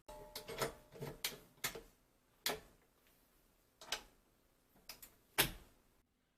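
About ten light knocks and clicks of objects being handled and set down, irregularly spaced; the first few ring briefly, and the loudest comes near the end.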